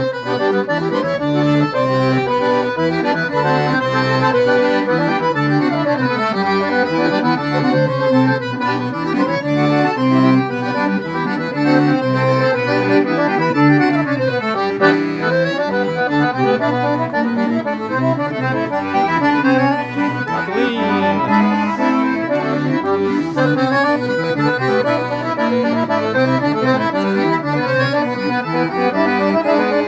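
Accordion playing a tune without a break: a melody over rhythmic bass chords.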